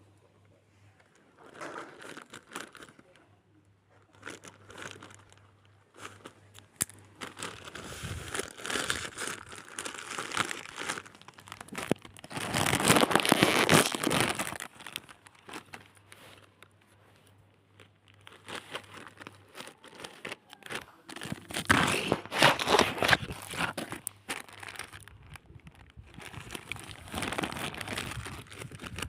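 Packaging being handled and opened around a jersey, crinkling in irregular spells with pauses between; the loudest handling comes about halfway through.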